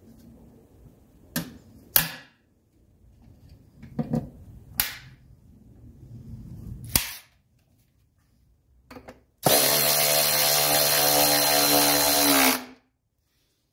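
Air-cleaner lid being fitted by hand, with about five sharp clicks and snaps over the first seven seconds. Then a cordless power tool spins for about three seconds, a steady whir that stops with a short fall in pitch, as it runs down the lid's centre fastener.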